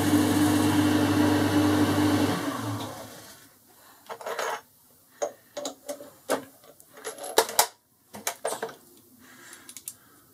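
Boxford metal lathe running with its chuck spinning, a steady motor hum, switched off about two seconds in and winding down over the next second. After it, a series of short metallic clicks and knocks as the finished steel screw and calipers are handled at the chuck, the loudest a pair about halfway through.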